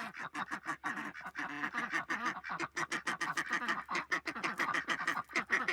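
A domestic fowl calling in a fast, unbroken run of short notes, about eight to ten a second.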